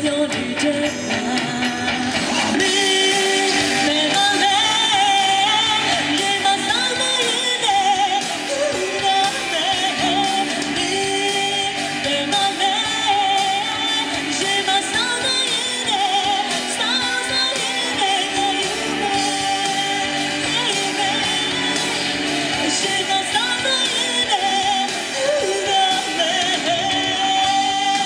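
A woman singing a pop-rock song live into a microphone, backed by a full band with drums.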